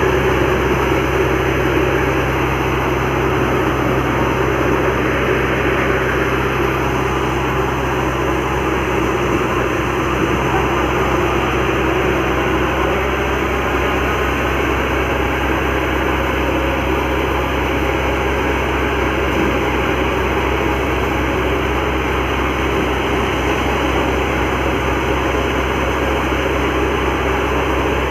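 Tractor-driven threshing machine running steadily as pigeon pea (arhar) plants are fed in: the tractor's diesel engine drones under load beneath the whir and rush of the thresher's drum and fan.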